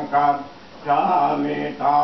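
Several voices chanting Buddhist prayers together in a steady, near-monotone drone, pausing for breath about half a second in before picking up again.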